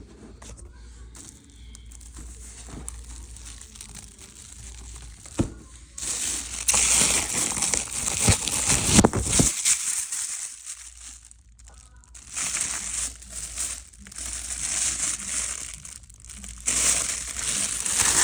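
Crinkly packaging wrap being handled and pulled off a boxed item, with a few light clicks at first and then loud bursts of crinkling from about six seconds in, in several runs with short pauses between.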